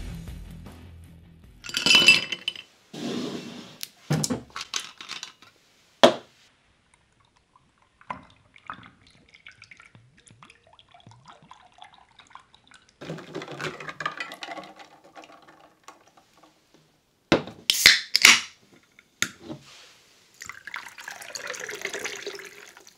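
A drink being poured into a glass: a few sharp glass clinks and knocks from the bottle and glass, with two short stretches of liquid pouring.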